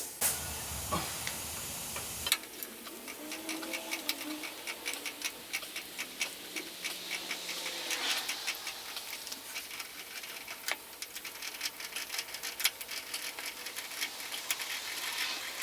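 Car jack being let down under a car: a long run of small, uneven ticks and clicks, several a second, over a faint hiss.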